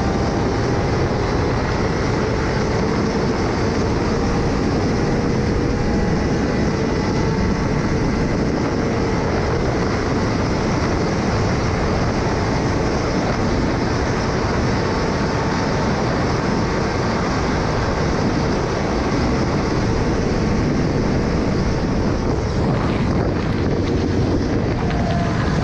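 Supercharged Kawasaki Ninja H2 inline-four running at full speed, above 300 km/h, heard from the rider's seat: a steady engine note under loud wind rush.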